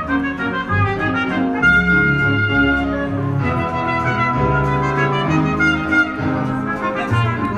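A musical's orchestra playing the playoff, the exit music at the end of the show, moving from one held chord to the next.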